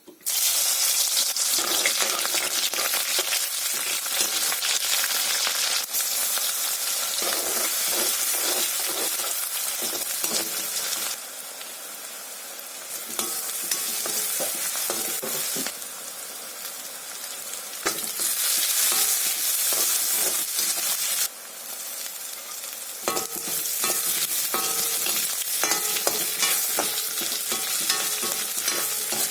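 Food sizzling as it is stir-fried in a pan, with the scrape and knock of a spatula or ladle. The sizzle's level drops and rises abruptly several times.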